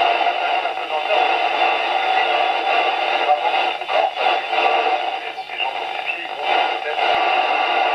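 Noisy FM reception from the speaker of a Yaesu FTM-100 transceiver tuned to the ISS downlink on 145.800 MHz: a steady, hiss-laden signal with no clear words, dipping briefly a few times.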